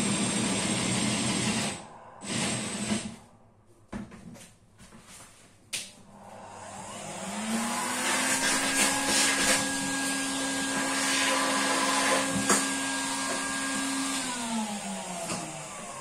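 A cordless drill spins a 35 mm hinge-boring bit into a chipboard cabinet door for about two seconds to deepen the hinge cup hole, then stops. A few seconds later a vacuum cleaner starts, rising in pitch as it comes up to speed, runs steadily sucking up sawdust through its hose nozzle, and winds down near the end.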